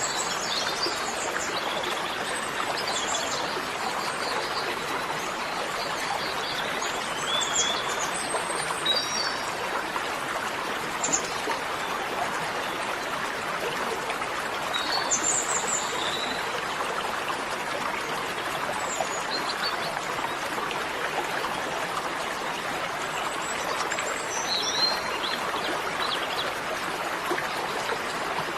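Steady rushing of a flowing stream, with birds chirping now and then over it.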